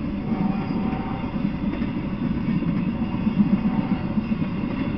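Freight train of empty intermodal flatcars rolling past on the rails: a steady rumble of steel wheels on track.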